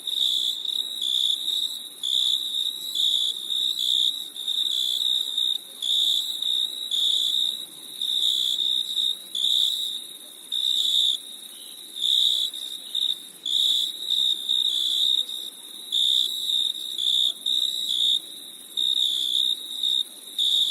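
Crickets chirping: high-pitched trilled chirps repeating about once a second, over a faint steady hiss.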